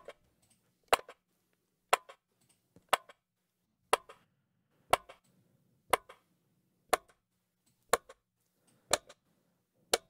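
Clock sound effect ticking about once a second, each tick a sharp click followed by a fainter second click. It is played through a transient shaper set to add attack and cut sustain on one frequency band.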